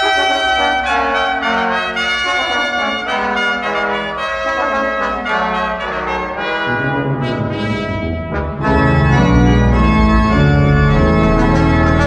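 Instrumental background music with changing pitched notes. A deeper bass part comes in about two-thirds of the way through and the music grows louder.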